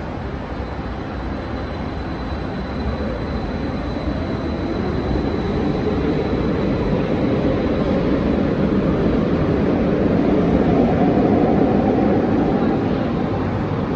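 Rumble of a metro train moving through the underground station, swelling over several seconds, loudest about ten to twelve seconds in, then easing off.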